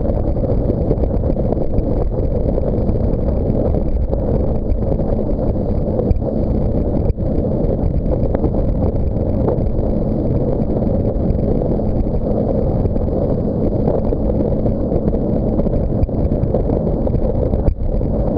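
Steady rush of wind buffeting the microphone and water churning under a towed banana boat moving at speed, with a faint steady engine drone from the tow boat underneath.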